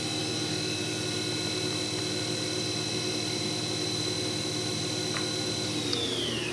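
Toyoda-Wele AA965 vertical machining center's CAT 40 spindle running at speed with a steady high whine. Near the end the whine falls in pitch as the spindle slows down.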